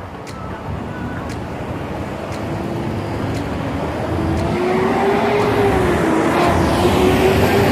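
Busy road traffic close by, growing louder, with a heavy truck's engine drone rising out of it from about halfway through. Faint ticks about once a second sound in the first few seconds.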